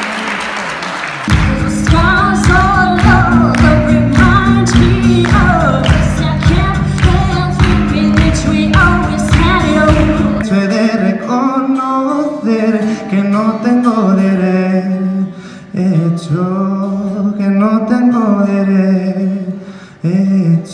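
Live amplified singing with accompaniment. A steady beat under the voice stops about ten seconds in, after which a singer continues over lighter accompaniment.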